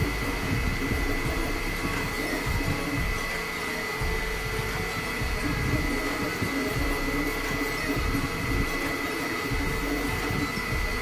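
Elegoo FDM 3D printer running a print: its cooling fans whir steadily with a constant high whine, while the stepper motors driving the print head and bed buzz in irregular spurts underneath.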